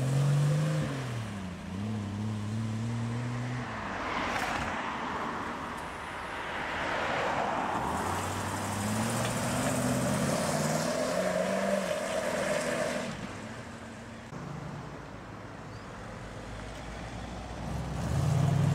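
Classic cars driving away one after another, each engine note rising and gliding as the car pulls off and passes, with road and tyre noise between them. A grey 1940s Ford sedan's engine comes through in the middle, and another engine swells loudly near the end as a Pontiac Firebird Trans Am approaches.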